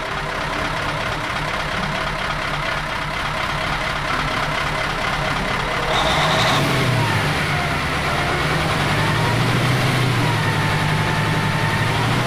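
Truck engine running steadily, a sound effect rather than the toy itself. About halfway through it gets a little louder, and a wavering higher tone glides above it.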